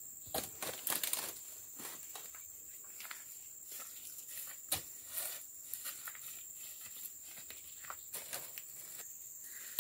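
Rustling footsteps in undergrowth and handling noises, with a few sharp knocks, over a steady high-pitched insect drone.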